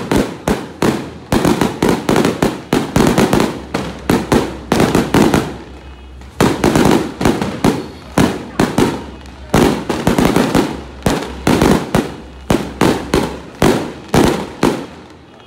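Firecrackers going off in rapid crackling runs of sharp bangs, with a few brief lulls, the longest about six seconds in.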